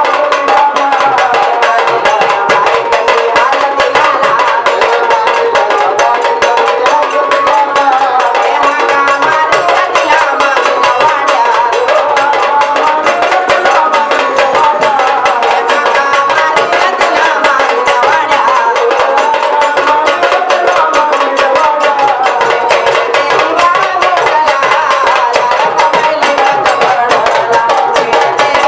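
Marathi gondhal devotional folk music for Khandoba: a singing voice with a wavering melody over fast, steady drumming.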